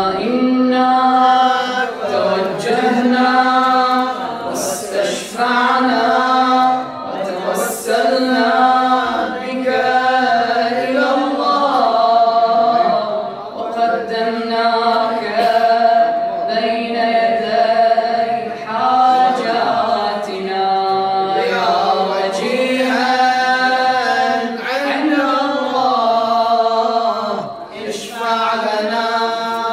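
A male voice chanting an Arabic supplication in a slow, melodic style. The phrases are long, with held and wavering notes, separated by short breaks for breath.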